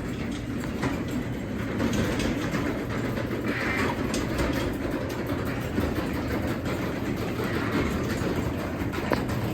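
Craftsman 3/4 hp garage door opener running as it raises the garage door, a steady motor hum under a continuous rumbling rattle of the drive and the door rolling along its tracks.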